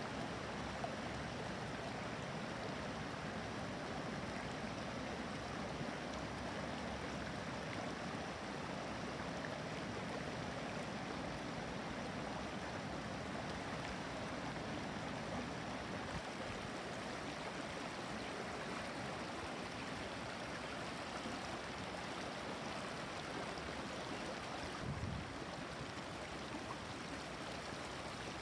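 Shallow, clear stream flowing over and between stones, a steady trickling water sound.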